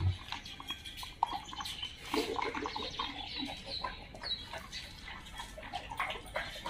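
Several dogs moving about on a hard tiled floor, with scattered small clicks and taps, and a few birds chirping in the background.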